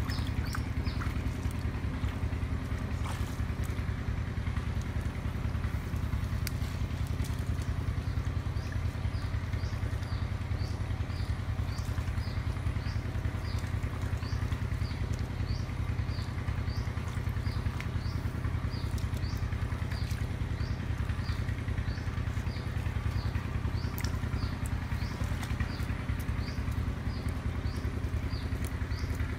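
A steady low engine drone with a fast, even pulse, like a small motor running nearby. A short high chirp repeats steadily over it, a little over once a second.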